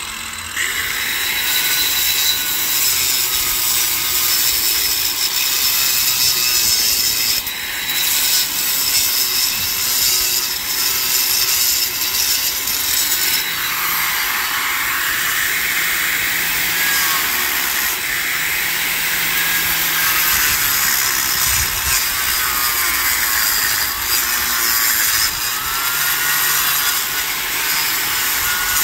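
Electric angle grinder cutting into the mortar joint of a concrete block wall. It makes a loud, continuous grinding hiss that steps up about half a second in, and its whine wavers in pitch as the disc is pressed into the cut.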